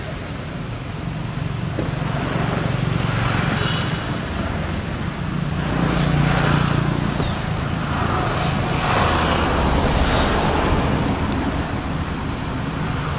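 Road traffic: motor vehicles passing, a steady low engine hum with several swells as vehicles go by.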